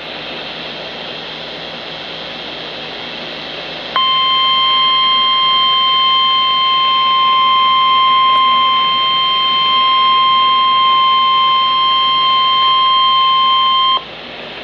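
Radio hiss for about four seconds, then a weather-radio warning alert tone: one steady high tone near 1 kHz that comes on sharply, holds for ten seconds and cuts off, leaving the hiss again. It is the alert tone that comes before a National Weather Service warning is read.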